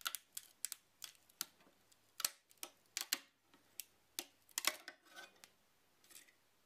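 Metal scraper working a freshly printed PLA part loose from the 3D printer's build plate: a faint series of irregular clicks and taps.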